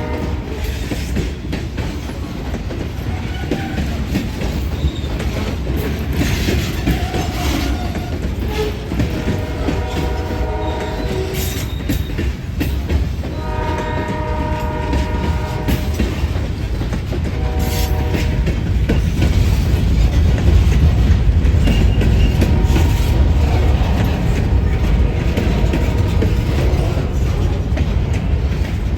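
Great Lakes Central Railroad diesel locomotives 329 and 386 passing with a train, the horn sounding in several blasts, the last one short, over the rumble of the engines and wheels on rail. The low rumble and wheel clatter grow louder in the second half as the train comes closer.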